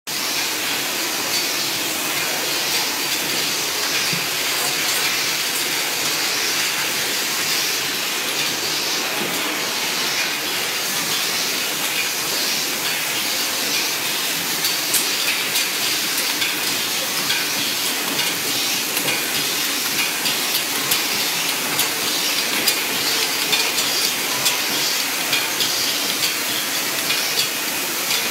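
Automatic cap hot-stamping machines running: a steady, dense rattling hiss with quick sharp clicks, which come through more often from about halfway.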